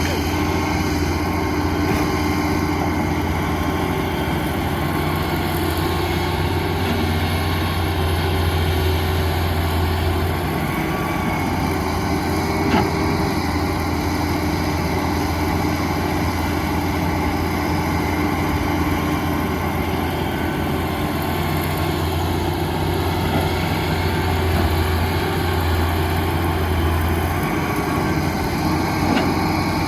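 Diesel engines of heavy earthmoving machinery running steadily at a low hum, with one short knock about halfway through.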